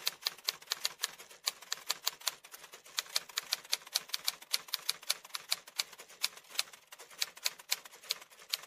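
Typewriter sound effect: rapid key clicks at an uneven pace, several a second.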